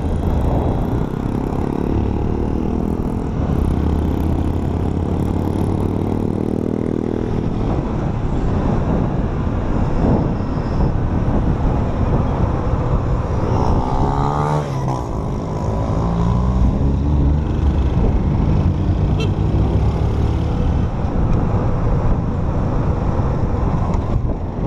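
Honda motorcycle engine running while riding through town streets, its pitch rising and falling as it accelerates and shifts gears. The engine has just been overhauled and the owner calls it as good as new.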